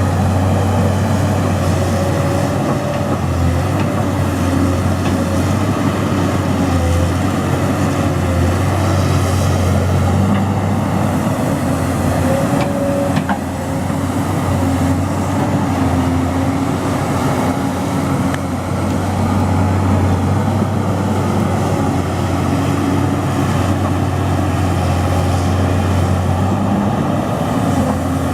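Excavator diesel engine running steadily under load, with a deep, constant hum, and a single brief knock about halfway through.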